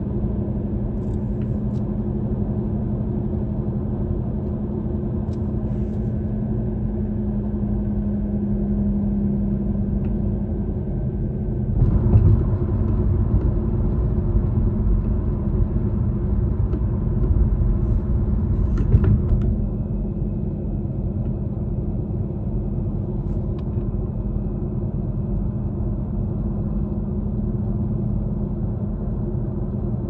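Road noise inside a moving car at highway speed: a steady low rumble of tyres and engine with a constant low hum. It grows louder and rougher for about seven seconds in the middle, then settles back.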